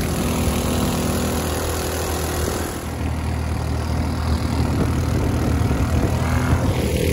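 Predator 212cc single-cylinder four-stroke engine driving a longtail mud motor, running steadily under load as it pushes a jon boat along. The engine has a stage-one upgrade: aftermarket exhaust, air intake and rejet.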